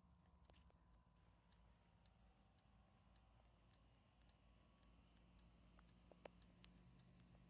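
Near silence: a faint steady low hum with soft, irregular ticks, one slightly sharper click near the end.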